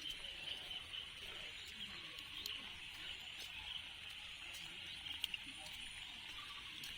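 Rain falling, a steady high hiss, with scattered drops ticking sharply on an umbrella.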